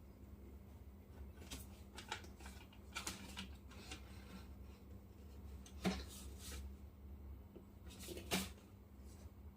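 Hands handling the packaging of a diecast model car: scattered rustling and scraping of cardboard and plastic, with two sharp knocks about six and eight and a half seconds in.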